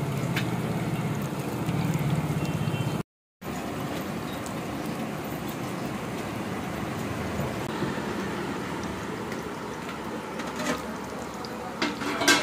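Batter-coated green chillies deep-frying in a wide iron karahi of hot oil: a steady sizzle. A low hum runs under it for the first three seconds, the sound cuts out briefly about three seconds in, and a few light clicks come near the end.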